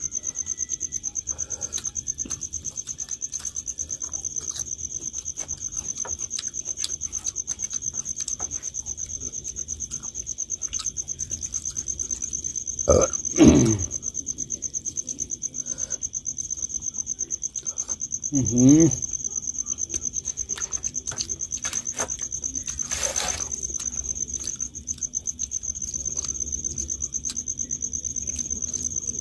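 Crickets chirring steadily in a constant high-pitched pulsing trill. Two short voice sounds from a person, about halfway through and again some five seconds later, are the loudest things heard.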